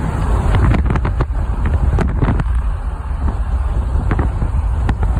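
Toyota Tundra pickup driving fast over gravel and rough ground, heard from inside the cab: a steady low rumble of tyres and drivetrain with irregular sharp cracks and knocks as the truck jolts over the surface. The cracks are thickest in the first half.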